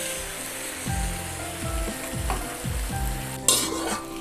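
A finished stew sizzling softly in a hot iron wok as it is ladled out, over light background music with a regular beat. A short scrape of a utensil comes about three and a half seconds in.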